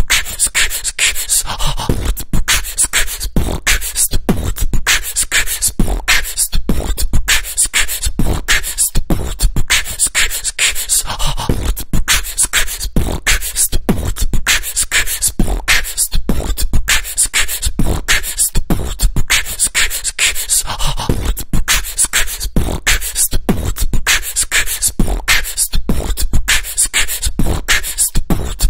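Vocal beatbox music loop: a steady, repeating rhythm of mouth-made kick, snare and hi-hat sounds.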